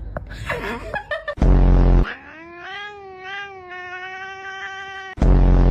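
Domestic cat making one long, drawn-out yowl of about three seconds that rises slightly and then holds its pitch. It is set between two loud, short, buzzy blasts, one before the yowl and one near the end, after some shorter scattered sounds at the start.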